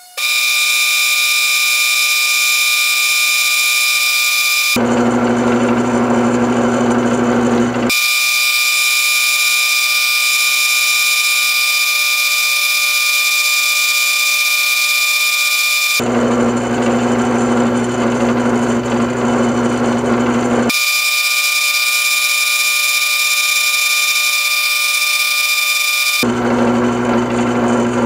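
Old Delta benchtop wood lathe running, spinning an acrylic pen blank during sanding. The steady motor whine switches abruptly several times between a high-pitched tone and a lower hum.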